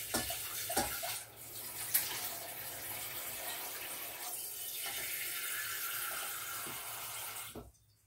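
Kitchen faucet running water into a stainless steel pot, a steady rush that shuts off abruptly near the end. A few knocks sound in the first second.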